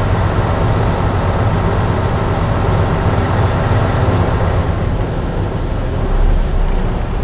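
Semi-truck's diesel engine running as a steady low drone, heard from inside the cab.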